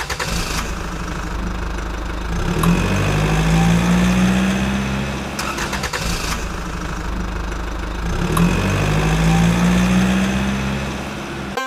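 Tractor engine sound effect, running and revving up twice as the same short recording repeats about every six seconds; it cuts off abruptly near the end.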